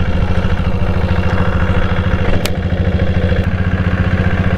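Royal Enfield Bullet fitted with a single-cylinder diesel engine, running steadily under way with an even, fast beat. A sharp click cuts through about halfway in.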